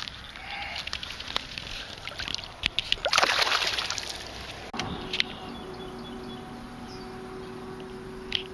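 A bass dropped back into the water with a splash about three seconds in, among small drips and clicks. From about five seconds in, a faint steady hum.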